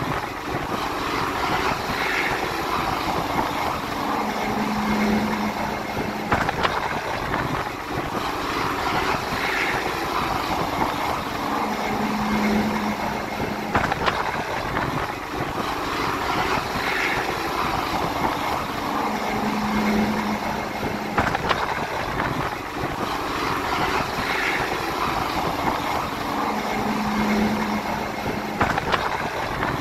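Search-and-rescue helicopter hovering alongside, its rotors and engines making a steady rushing noise while a stretcher is winched up, with a low hum that swells about every seven or eight seconds.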